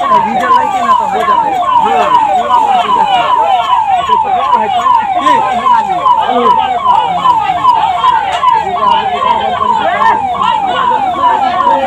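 Fire engine's electronic siren sounding in quick, repeated falling sweeps, about two and a half a second, with people's voices underneath.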